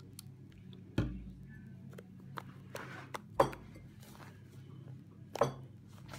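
Kitchenware being handled: three sharp knocks with small clinks and clicks between them, over a low steady hum.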